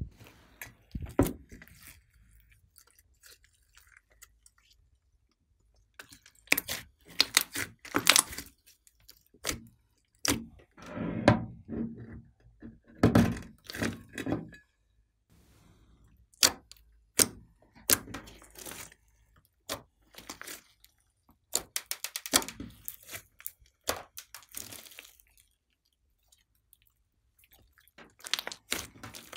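Thick slime being pressed, pulled and peeled out of a glass dish by hand, making sticky crackles, pops and squelches in irregular bursts, with quiet gaps between them.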